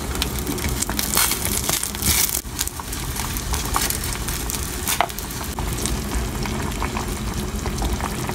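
Chicken broth boiling in a stainless steel pot on a stove, a steady bubbling hiss with scattered light clicks and taps as ingredients go in with chopsticks.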